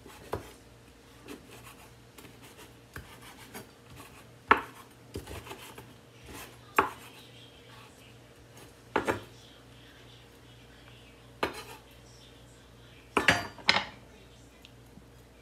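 Utensils clinking and scraping against dishes as food is dished up: sharp clinks spaced a second or two apart, with a quick cluster of them near the end, over a faint steady hum.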